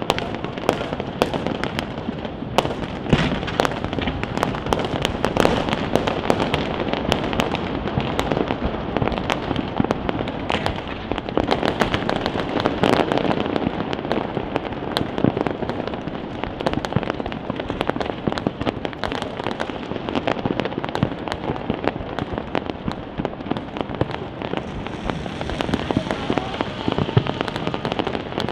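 Fireworks display going off without a break: rapid, overlapping bangs and crackling bursts.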